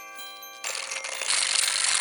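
Bell-like chiming music notes, then after about half a second a louder rushing noise takes over and cuts off suddenly at the end.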